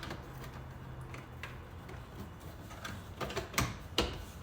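Small parts of a car door handle assembly being handled and fitted: a few sharp clicks and taps, one about a second and a half in and three in quick succession near the end.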